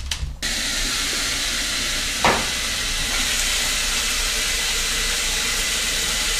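Top-loading washing machine filling with water: a steady hiss of water pouring into the tub, starting abruptly about half a second in. A single knock a couple of seconds later.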